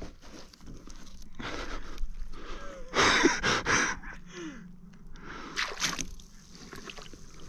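A freshly caught squid squirting jets of water and ink as it is handled at the kayak, in wet squishing, sloshing spurts. There are three spurts, the loudest about three seconds in.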